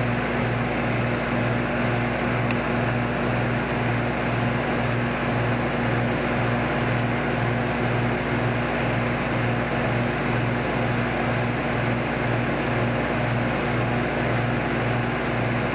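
Microwave oven running: a steady electrical hum with a regular pulsing beat about one and a half times a second, over the rush of its cooling fan.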